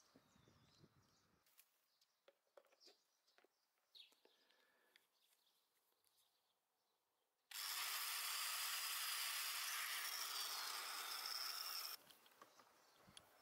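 Restored 1980s Wolf electric drill switched on and running at speed for about four and a half seconds: a steady whine with a constant high tone that starts suddenly and stops abruptly. Before it comes a scatter of light clicks and taps from the drill being handled.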